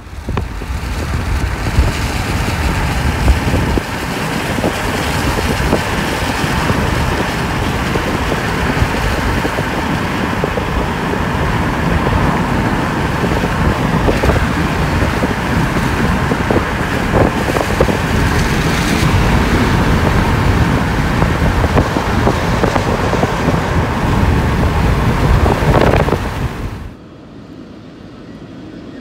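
Car driving at speed with wind buffeting the microphone and tyre and road noise, loud and steady. It cuts off suddenly near the end, giving way to much quieter outdoor sound.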